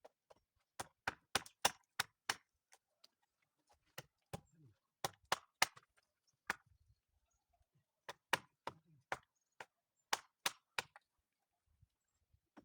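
Hammer blows struck in quick runs of four to seven, about three a second, with short pauses between runs.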